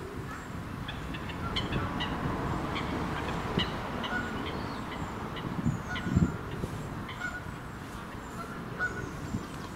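Pond birdlife calling: honking water-bird calls mixed with many short chirps from small birds, over a steady outdoor background noise.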